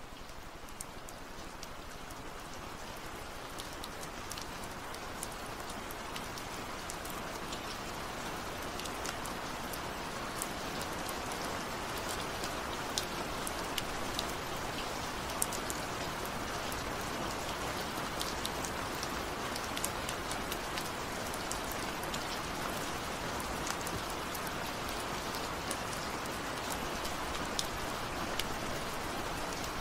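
Steady rain: an even hiss with many small scattered drop ticks, growing louder over the first ten seconds or so.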